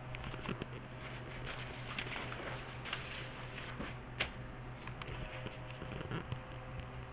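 Sheets of sketch paper rustling and crinkling as they are handled and a page is turned, with irregular crackles and one sharp crackle about four seconds in. A low steady hum runs underneath.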